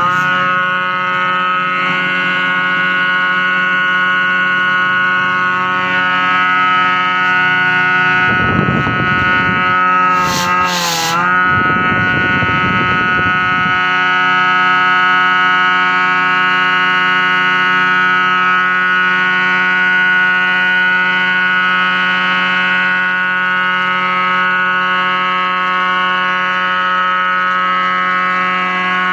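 AMR 500 Roots-type supercharger working as an aerator blower, belt-driven by a 1 HP three-phase induction motor on an inverter, running with a steady high whine made of several tones. The pitch wobbles and dips briefly about eleven seconds in, with a rough noise underneath for a few seconds around it.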